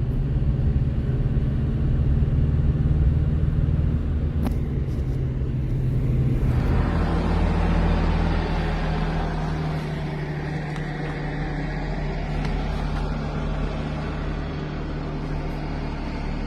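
Motor vehicle engine running with a steady low hum; about six and a half seconds in the hum drops lower and a rushing noise comes in over it.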